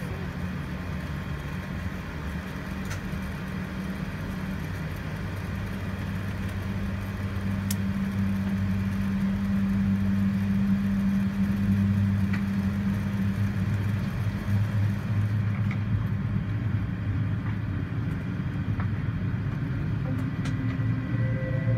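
Cabin noise of an Airbus A380 taxiing, heard from over the wing: a steady low rumble and hum from its Rolls-Royce Trent 900 engines and rolling gear, growing louder partway through.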